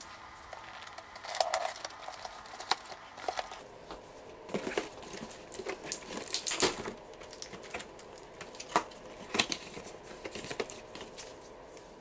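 Cardboard box being opened by hand: flaps and packing rustling and crinkling, with irregular scrapes and sharp knocks, the loudest a little past the middle and again later on.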